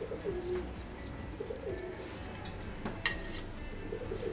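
Pigeon cooing in the background, a few short low coos roughly a second and a half apart, with a single sharp click about three seconds in.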